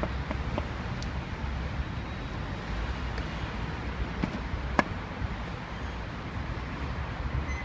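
City street background: a steady low traffic rumble, with a few faint clicks and one sharp click about five seconds in.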